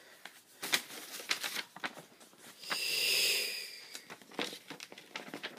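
Paper model being handled, with scattered rustles and crinkles and a longer hiss about three seconds in.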